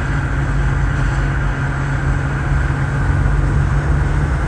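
Steady road and engine noise inside a car driving at highway speed, with a low steady hum.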